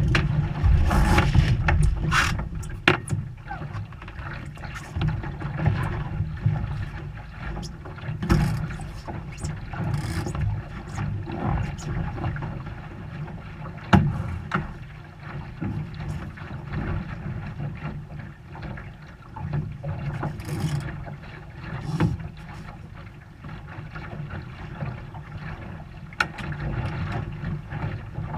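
Water rushing along the hull of a small sailboat under sail, with wind buffeting, as a continuous low rumbling wash. Scattered sharp knocks and clicks come from the boat's lines and fittings, the loudest about 14 seconds in.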